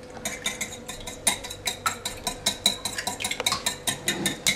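Wire whisk beating egg whites in a glass bowl, its wires clicking against the glass in a fast, even rhythm of about six strokes a second.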